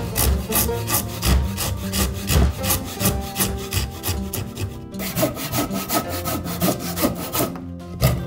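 Japanese hand saw cutting into a timber beam in quick, regular strokes, with a short pause about five seconds in before the strokes resume. A knock near the end.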